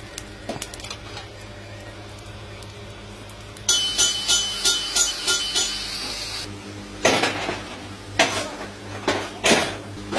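Iron tools scraping and clinking in a pan of molten metal over a coal fire, as a rod rakes the dross and a perforated ladle skims it. A run of quick, ringing scrapes comes about four seconds in, and louder sharp scrapes follow from about seven seconds on.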